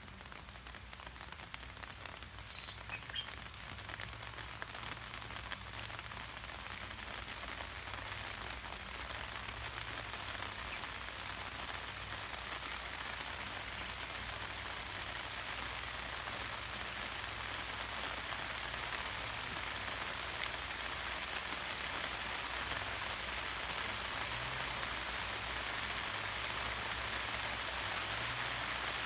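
Steady rain pattering on surfaces, growing gradually heavier and louder over the span.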